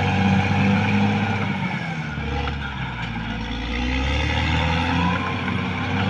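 Caterpillar D6R XL bulldozer's diesel engine running while it works. Its note deepens about two seconds in, then returns to its earlier sound near the end.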